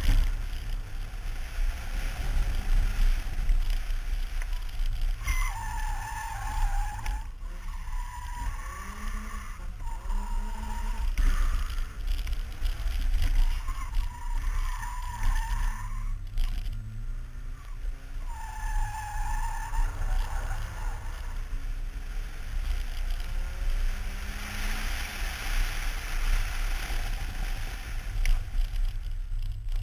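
BMW E30 318is four-cylinder engine running hard under load as the car is driven at speed through corners. Its tyres squeal in several bursts, each a second or two long.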